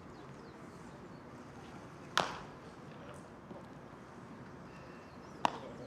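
Two sharp cracks of a baseball impact, about three seconds apart, each ringing out briefly, over steady outdoor background noise.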